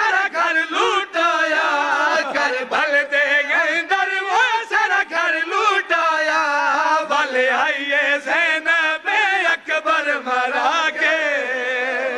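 Several men chanting a Shia mourning lament (nauha) together through a PA system, holding long wavering notes with heavy vibrato.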